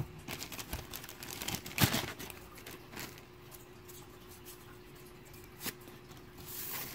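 Stack of game cards being handled and set down on a playmat: a quick run of light clicks and rustles over the first two seconds, then quieter handling, with a soft rustle near the end.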